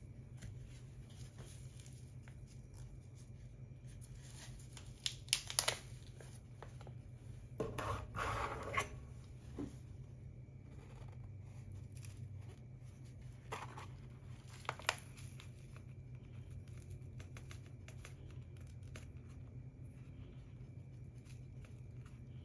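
Paper and kraft-bag crinkling and rustling in a few short bursts, about five, eight and fourteen seconds in, as a paper pour-over filter and a coffee bag are handled. A steady low hum runs underneath.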